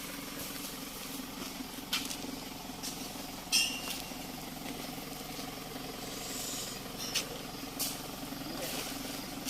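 Dump truck's engine idling steadily, with a few sharp knocks and clinks over it, the loudest about three and a half seconds in.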